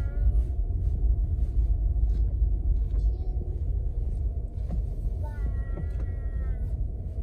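Low rumble of a car's engine and tyres heard from inside the cabin while driving slowly, with a drawn-out, slightly wavering squeal about five seconds in.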